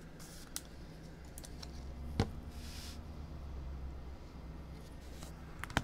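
A few sharp, light clicks and taps at a desk, the loudest about two seconds in and another near the end, over a low steady hum.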